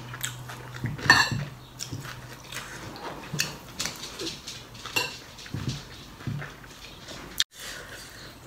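Close-up chewing and crunching of minced-pork larb and fresh raw vegetables, with scattered clicks of a metal spoon.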